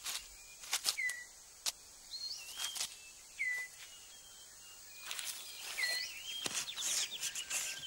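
Rainforest sound: short whistled bird notes recur every second or so, with a quick trill near the end. Between them come sharp clicks and dry rustles of leaves and twigs as the floor of a bird of paradise's display court is cleared.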